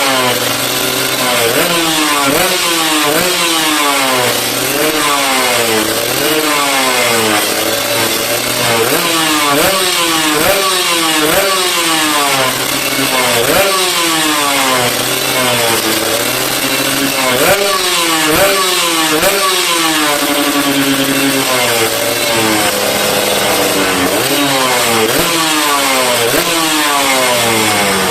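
Kawasaki Ninja RR's single-cylinder two-stroke engine, breathing through a WRX GP racing exhaust and a PJ38 carburettor, being blipped over and over: the pitch shoots up and drops back about once a second, with short spells of idle between some revs.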